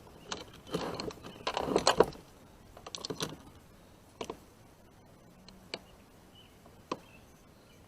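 Light clinks and rattles of fishing tackle being handled and sorted: a busy run of small clicks in the first couple of seconds, then single clicks coming further apart.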